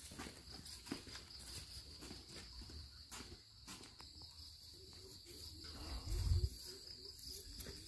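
Insects trilling steadily in the background, with scattered footsteps and handling knocks on the phone. About six seconds in there is a brief low rumble.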